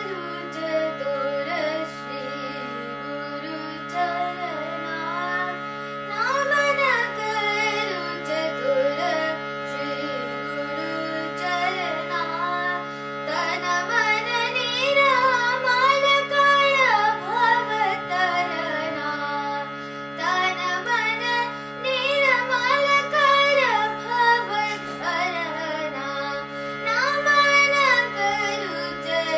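A boy singing an Indian classical-style melody with long ornamented glides, accompanied by a harmonium holding steady drone notes.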